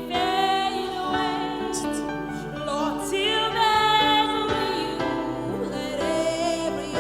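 Gospel worship singing, with long held notes that waver in pitch, over steady musical accompaniment.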